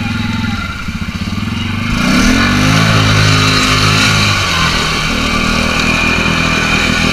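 Can-Am Outlander 450 ATV's single-cylinder engine revving up about two seconds in and held at high revs as the quad churns through deep muddy water, with a loud rush of splashing. The rider puts the struggle down to a burnt CVT belt slipping.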